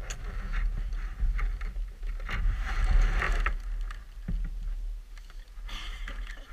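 A steel Stanley vacuum flask being handled, its metal cup lid fitted onto the top: a few light clicks and a grainy scraping about two and a half seconds in, over a steady low rumble.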